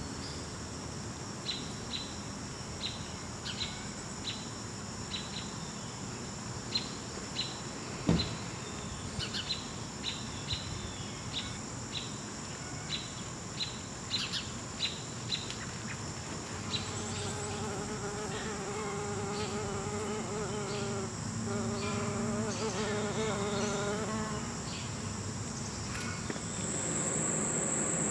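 Late-summer insect chorus: a steady high-pitched trill of crickets, with a short chirp repeating somewhat faster than once a second. About halfway through, a wavering buzz joins for several seconds. A single knock comes about eight seconds in.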